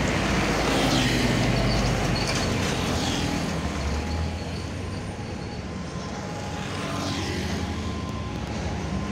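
Road traffic passing close by: a pickup and a small van drive past one after the other, engine and tyre noise loudest at first and easing off, then building again near the end as a heavier truck approaches.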